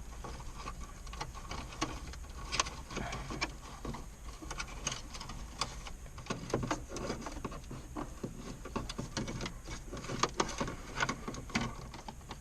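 Irregular plastic clicks, taps and rattles of wiring and a car stereo head unit being pushed into the dashboard opening, with several sharper knocks.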